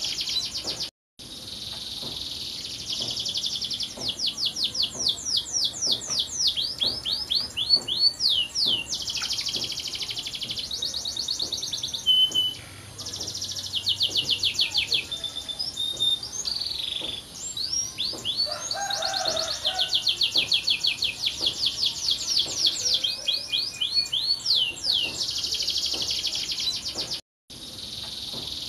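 Canary singing a long, high-pitched song of rapid trills and quickly repeated sweeping notes. The sound cuts out for a moment twice, once about a second in and again near the end.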